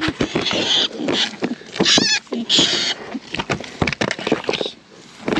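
Rat-hunting dogs whining and yelping in high, excited cries around a rat burrow, over scrabbling and scratching. The cries mark a rat located but out of reach in its hole.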